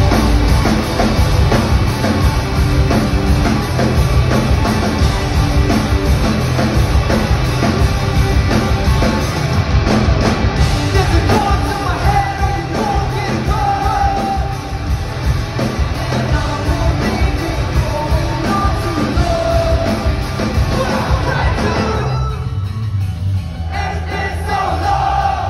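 Hardcore punk band playing live in a concert hall: loud distorted guitars, bass, drums and vocals. Near the end the band briefly thins out to mostly low bass and drums before coming back in.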